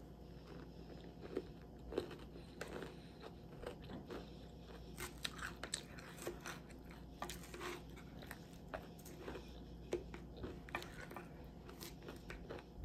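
Close-miked chewing and crunching of a lettuce salad, with many short, crisp clicks scattered irregularly throughout.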